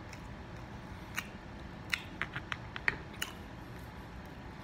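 Close-miked chewing of a mouthful of pancake, with a series of short sharp wet clicks, most of them bunched between two and three and a half seconds in.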